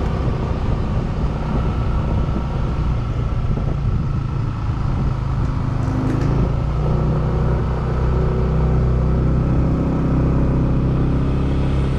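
Motor vehicle engine running steadily at close range, a low hum whose pitch shifts slightly about six seconds in.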